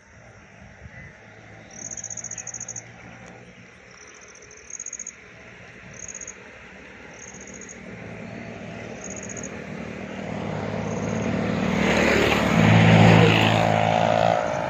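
An insect chirping in short, high trills, repeated roughly once a second. Over the second half a vehicle engine grows steadily louder, loudest near the end.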